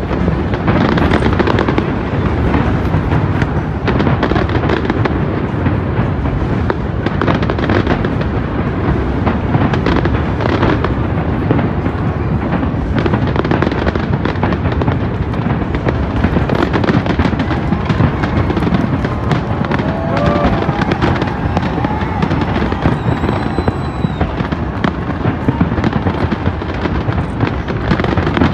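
Aerial fireworks going off in a dense, continuous barrage: many bangs and crackles overlapping with no pause, with a brief high whistle partway through.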